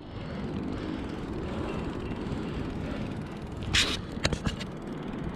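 Mongoose mountain bike rolling on paved road, its tyres and frame giving a steady low rumble, with a brief hiss and a few sharp clacks a little before 4 s as it runs onto a strip of paving bricks.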